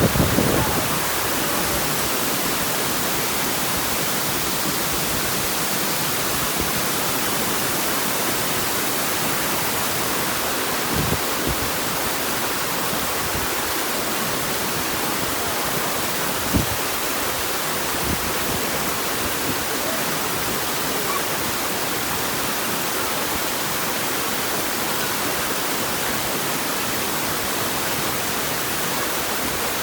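Waterfall pouring steadily, a constant even rush of falling water, with a few brief low thumps: one near the start, one about eleven seconds in and one about sixteen seconds in.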